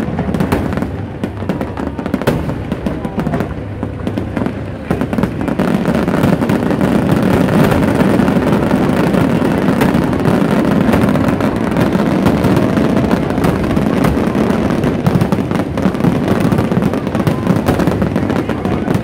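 Aerial fireworks bursting in rapid succession, many overlapping bangs and crackles; the barrage grows denser and louder about five seconds in and keeps up without a break.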